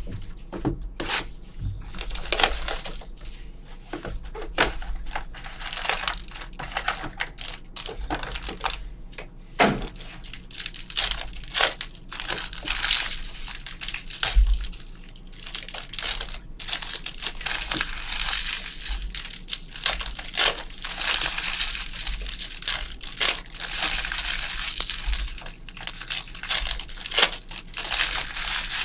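Trading-card box and pack wrappers being torn open and crinkled: a rapid, irregular run of crackles and tears, thickest in the second half.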